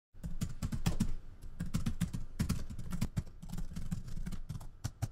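Rapid typing: a quick, irregular run of key clicks that starts suddenly out of silence.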